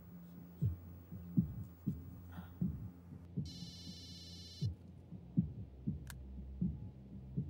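Suspense score: a low steady drone under a heartbeat-like pulse of low thumps, about one and a half a second. About three seconds in, a mobile phone rings briefly with a buzzy electronic tone, and a single sharp click follows a few seconds in.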